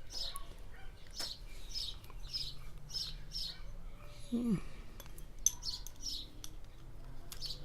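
A bird chirping over and over in short high notes, about two or three a second, with a pause around the middle. A few faint clicks and one short falling squeak come about halfway through.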